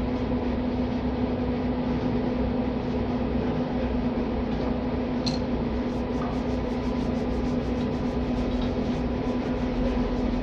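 A steady machine hum with a constant low tone. A single click about five seconds in, then a faint, quick, even ticking of about four to five ticks a second.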